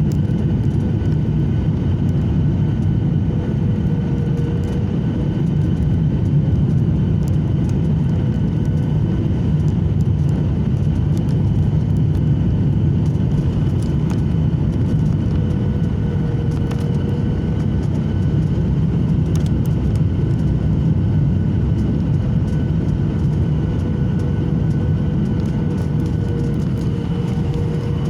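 Steady rumble of an airliner's engines and rushing air heard from inside the passenger cabin, with a few faint steady whining tones over it and light rattling ticks.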